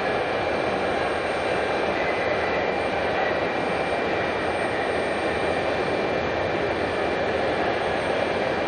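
Jet airliner engines giving a steady, even roar, with a faint high whine held above it.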